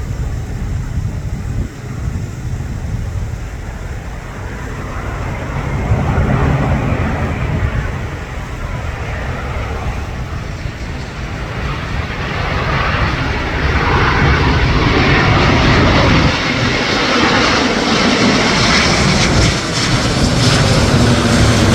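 Jet airliner's engines on landing approach, a steady roar that builds louder and brighter as the plane comes closer, loudest through the second half.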